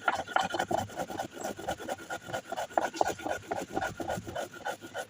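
Rhythmic back-and-forth scraping, about four to five strokes a second, kept up evenly throughout: kitchen work on the pickle ingredients.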